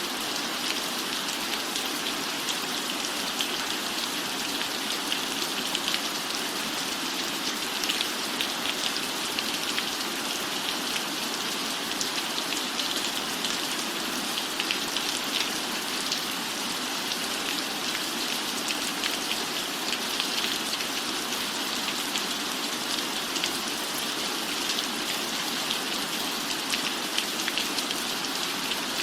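Steady rain, an even hiss dotted with many small drop ticks.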